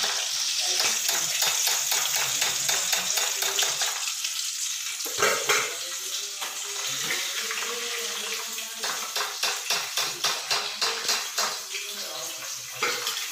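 Chicken pieces deep-frying in hot oil: a steady sizzling hiss with fine crackle throughout. A couple of clinks of a metal spoon against the pan and colander come about five seconds in, and a run of light taps follows later.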